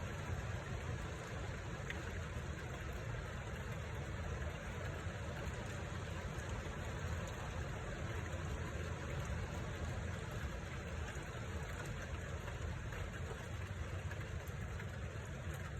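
Steady rushing noise of squall wind and rain, heavy at the low end, with no distinct thunderclaps.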